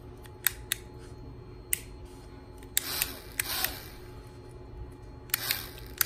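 Sharp single clicks from handling a small metal DPDT toggle switch, about five spread over the first three seconds, with brief rustling as its wires are handled around three seconds and again near five and a half seconds.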